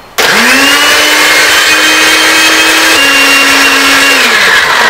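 Countertop blender motor switched on and spinning up fast, then running steadily with a small drop in pitch about three seconds in. It winds down as it is switched off near the end.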